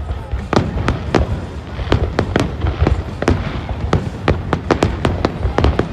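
Fireworks bursting overhead: a rapid string of sharp cracks and bangs, several a second, over a steady low rumble.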